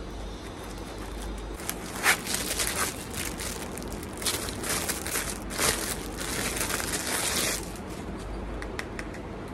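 Thin plastic packaging being crinkled and torn by hand, with the clear wrap pulled off a wooden hairbrush, in a run of crackly rustles lasting about six seconds. One sharp loud crackle comes about two seconds in.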